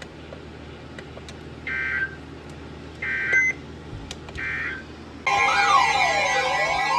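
Emergency Alert System end-of-message code: three short bursts of two-tone digital data warble, about a second and a half apart, over a low steady hum. About five seconds in, loud music cuts in abruptly.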